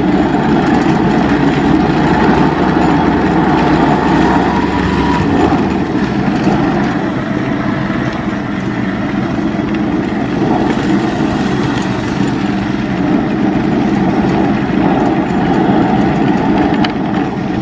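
Engine of a ZiD Vyuga mini snowmobile running steadily as the machine is ridden.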